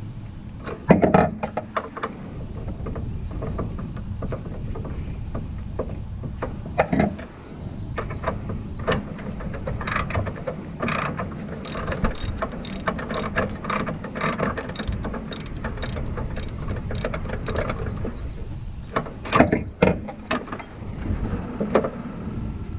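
Ratchet wrench clicking as a spark plug socket on an extension is worked back and forth, in runs of quick clicks with a few louder knocks of metal.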